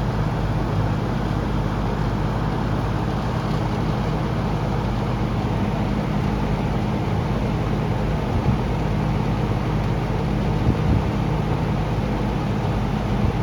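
Penncrest 100 box fan (9711-A) running steadily: an even rush of air over a low motor hum.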